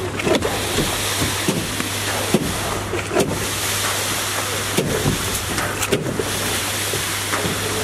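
Steady running of the construction machinery at a rooftop concrete pour, a constant low engine hum under a broad noise, with short scattered clanks and scrapes over it.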